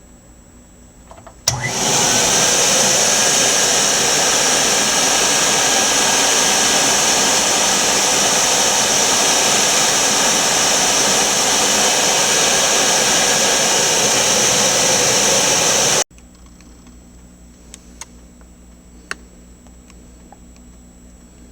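1949 Electrolux Model XXX canister vacuum cleaner running at a loud, steady pitch with a high whine. It starts with a click about a second and a half in and cuts off abruptly near the end, followed by a few faint clicks.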